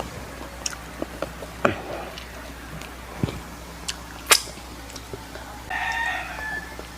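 A rooster crowing once, a little under a second long, near the end, with scattered sharp clicks and taps before it.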